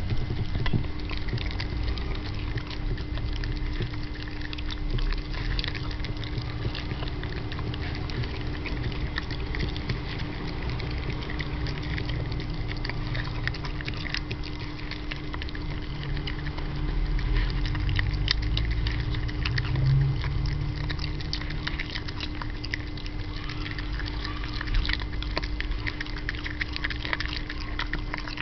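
Jack Russell Terrier eating a meal of fish and vegetables from a ceramic bowl: a continuous run of quick, irregular chewing and smacking clicks, with a steady faint hum underneath.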